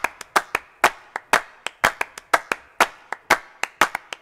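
Rhythmic hand clapping in an even, syncopated pattern: strong claps about twice a second with lighter claps in between.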